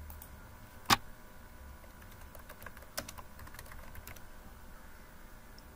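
Typing on a computer keyboard: an uneven run of key clicks, with one sharper, louder keystroke about a second in.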